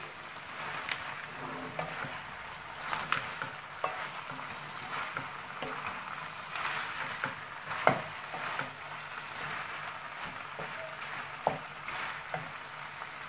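A chicken and bok choy stir-fry sizzling in a non-stick wok while a wooden spatula stirs and turns it. The spatula clicks and knocks against the pan many times, loudest about eight seconds in.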